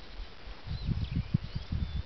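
Friesian heifers close by: a quick, irregular run of low, muffled thuds and crunches starts about a third of the way in, of the kind cattle make chewing and shifting right beside the microphone.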